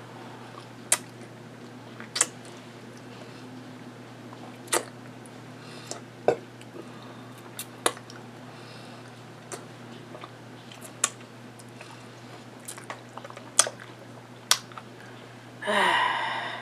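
Close-up mouth sounds of eating: chewing and licking food off the fingers, with sharp wet clicks and smacks every second or two. A short vocal sound comes near the end.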